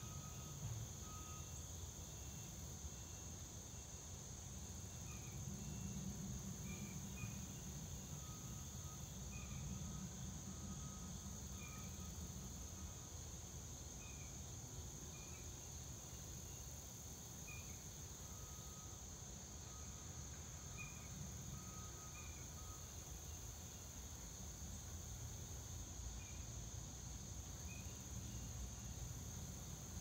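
Outdoor insect chorus: a steady high-pitched drone, with short chirps every second or so and a faint low rumble underneath.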